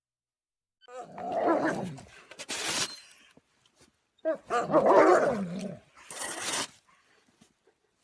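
A dog vocalizing in two drawn-out, wavering grumbles, each followed by a short breathy hiss.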